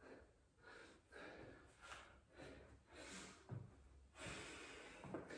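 A man breathing hard in quick, repeated breaths, about one or two a second, catching his breath after a set of burpees.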